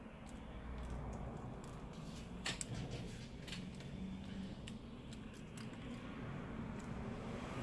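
Faint small clicks and light tapping from handling a smartphone's flex cable connector with small tools, the sharpest click about two and a half seconds in.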